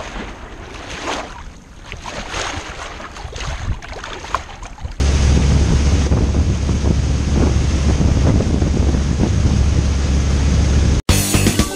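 Water washing against a sailboat's hull as it sails through chop, with wind on the microphone. About five seconds in it changes abruptly to a louder, steady rush: a powerboat running fast, spray hissing off its hull over a deep, constant rumble. It cuts out just before the end.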